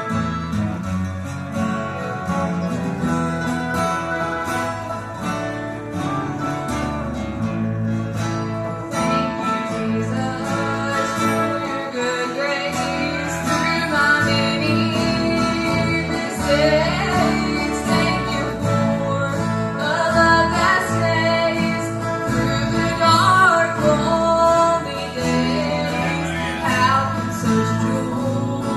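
Live gospel group performing a country-style song with acoustic guitar accompaniment; the instruments play alone at first, and voices join in singing from about ten seconds in.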